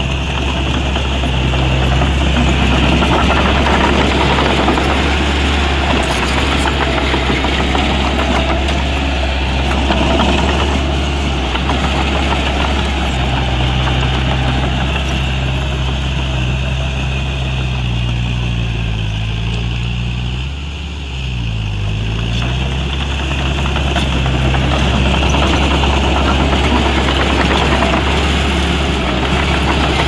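Diesel engine of heavy earthmoving machinery running steadily at a low, even note; about two thirds of the way through its pitch dips and recovers twice in quick succession.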